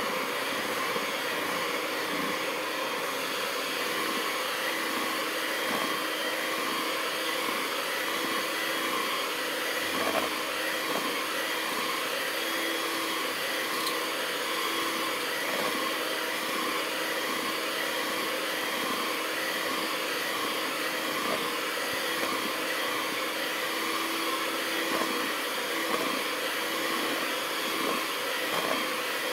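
Electric hand mixer running steadily at one speed, its beaters whisking a batter of eggs, sugar and oil in a bowl.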